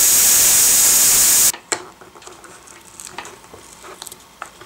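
Hair dryer blowing with a high whine, switched off suddenly about a second and a half in. Then faint scattered crackles and ticks as the adhesive front film of the HMI panel is peeled back by hand.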